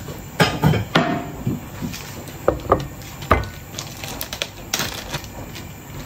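Kitchen utensils and dishes knocking and clinking at irregular intervals: about a dozen sharp knocks, some ringing briefly, the loudest cluster in the first second.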